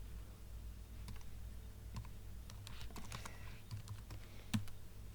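Computer keyboard being typed on: a handful of separate keystrokes at an uneven pace, over a steady low hum.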